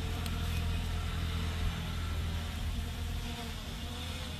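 F11 4K Pro quadcopter drone flying overhead: a steady propeller buzz whose pitch wavers slightly, over a low rumble.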